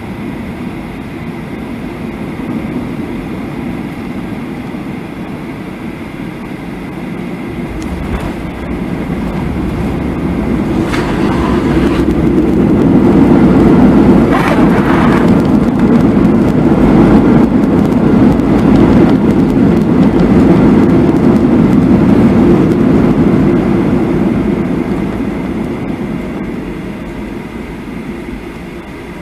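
Cabin noise of a Boeing 737 touching down and rolling out on the runway: steady wheel and airframe rumble, with a knock about eight seconds in. The noise then swells loudly for about ten seconds, as with engine reverse thrust while braking, and dies away as the plane slows.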